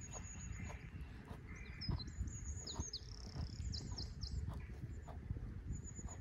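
Deer grazing: grass being torn and chewed with irregular low crunching and rustling, broken by small clicks. Small birds chirp in short high calls, most of them in the middle.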